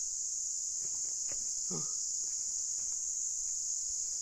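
Steady high-pitched insect drone from the forest, cicadas or crickets, unbroken throughout. A few faint knocks and a short low sound about two seconds in.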